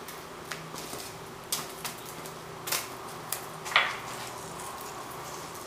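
Light, scattered ticks and taps, about six of them with the loudest near the end, as salt is sprinkled by hand over thin eggplant slices on parchment paper. A faint low hum runs underneath.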